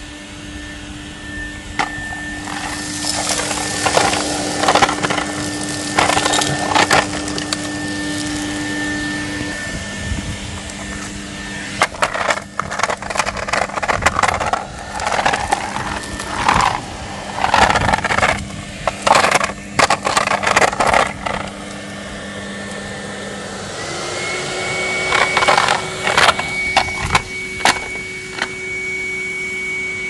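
Pink Hetty canister vacuum cleaner running with a steady hum, as its floor tool is pushed over a dirt and gravel path. Grit and small stones clatter and crackle through the nozzle and hose in bursts. The motor note steps up in pitch about eight seconds before the end and stays higher.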